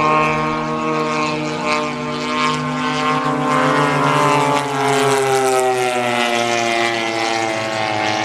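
Radio-controlled model airplane's engine and propeller running, a steady buzz whose pitch drifts slowly down over several seconds and then holds.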